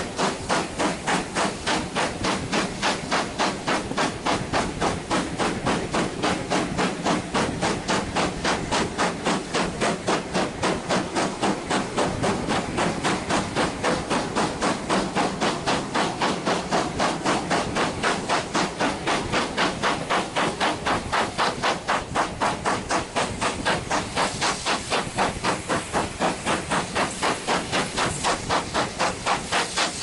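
Steam locomotive hauling its train at a steady pace, its exhaust beating evenly at about three beats a second with a hiss of steam, heard from a carriage window.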